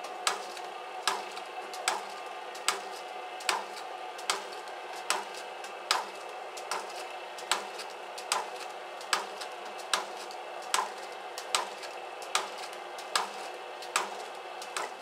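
US301s machine running 0.6 g salt pouches: a steady motor whir with a sharp click about every 0.8 seconds as it cycles.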